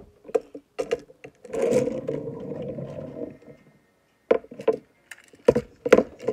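Plastic toy train parts clacking and knocking against each other and the wooden tabletop as they are handled: a Shooting Star Gordon body and its wheeled chassis. There are several sharp clicks, and a rumbling scrape of nearly two seconds begins about a second and a half in.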